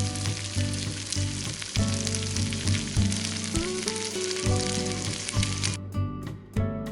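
Food sizzling as it fries in a pan, a steady hiss that cuts off abruptly about six seconds in, under background music.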